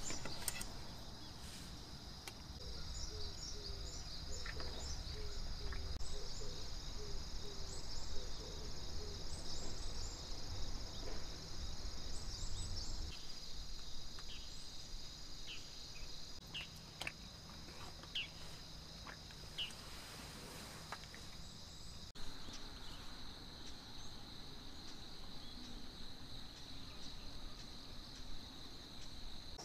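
Insects trilling steadily in one high, unbroken drone, with quick higher chirps over it in the first half and a few light clicks later.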